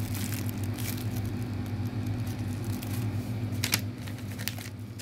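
Clear plastic bag crinkling in short rustles as a squishy toy inside it is handled, with a sharper crackle late on, over a steady low hum.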